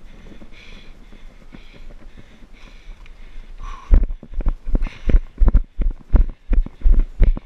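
Heavy breathing of a runner, then from about four seconds in, heavy rhythmic thuds of running footfalls jolting the body-worn action camera, about three a second.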